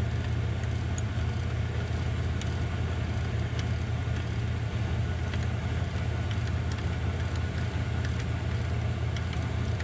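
A steady low mechanical hum with a few faint, scattered ticks.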